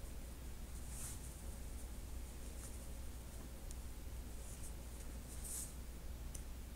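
Faint rustling of a paper towel and bucktail fibres being handled at a fly-tying vise: two soft scratchy brushes, about a second in and near the end, and a few light ticks over a low steady hum.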